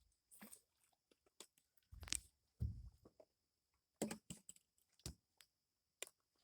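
Faint, scattered knocks and rustling, a few short thuds a second or so apart, typical of close handling noise.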